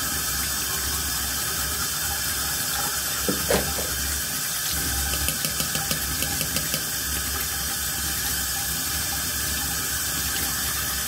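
Bathroom tap running steadily into the sink, with light scratchy ticks of teeth being brushed partway through. A short squeaky sound rises and falls about three and a half seconds in.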